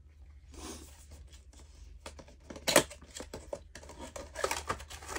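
Cardboard window box and plastic packaging of a Star Wars Black Series action figure being opened by hand: rustling and scraping with scattered clicks, and one sharp snap about two and a half seconds in.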